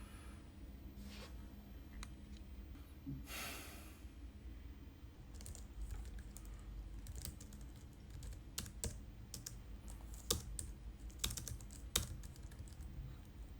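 Irregular light clicks and taps, several a second, starting about five seconds in, after a short hiss of noise a few seconds before.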